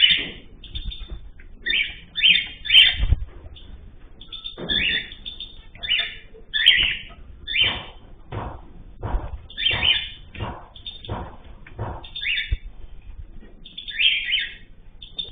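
Pet cage birds chirping in many short, overlapping calls, with a few low thumps between them.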